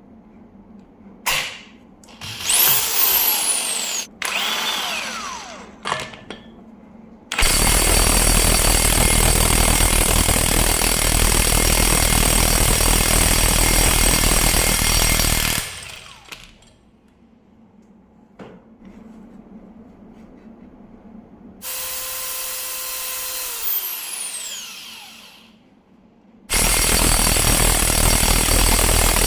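Kobalt KIW 5024B-03 brushless cordless impact wrench run in bursts: a few short triggers whose pitch falls away, then about eight seconds of loud, steady hammering while it works to break a torqued nut loose. After a pause it spins with a steady whine that winds down, and another loud hammering run begins near the end.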